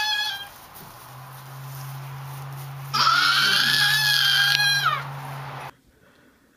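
Lambs bleating: the end of one high bleat at the start, then one long, high bleat about three seconds in that lasts nearly two seconds, over a low steady hum.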